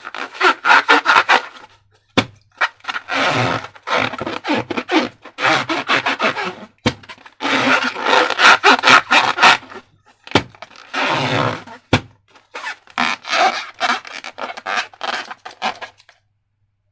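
Slime being squeezed and worked by hand in repeated bursts of crackly, sticky squelching, with a few sharp clicks between them; it stops shortly before the end.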